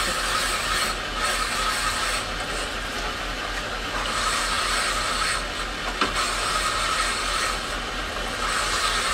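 Quartz crystal sphere being ground by hand against a rotating lapping plate in wet abrasive slurry: a steady grinding rasp over the low hum of the machine's motor, with one sharp click about six seconds in.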